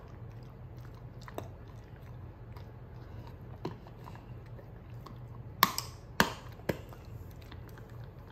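A wolfdog crunching a hard, stick-shaped chicken-liver dog treat: scattered sharp cracks as his teeth snap the stick, a few early and a quick cluster of the loudest a little past halfway.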